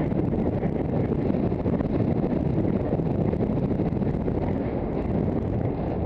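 Steady wind noise buffeting a helmet-mounted camera's microphone as the horse and rider move at speed.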